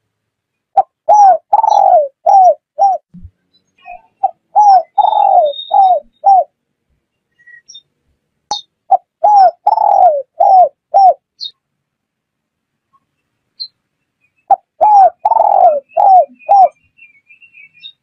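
Spotted dove cooing: four phrases a few seconds apart, each a run of about six coos with one longer coo among them.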